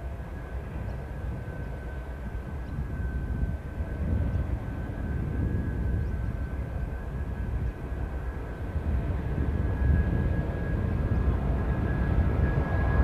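Two 422 class diesel-electric locomotives hauling a loaded oil tank train, their engines a low rumble that grows louder as they approach, with a steady high whine over it.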